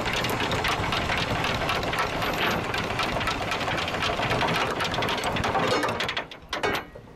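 Anchor windlass hauling in the chain: a fast, continuous rattle of chain links running over the bow roller as the anchor is raised. The rattle stops about six seconds in, followed by a few last clanks as the anchor comes home to the bow.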